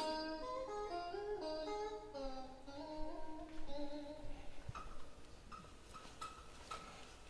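Background music, a stepping melody that fades out over the first half. It is followed by a few short, faint clicks.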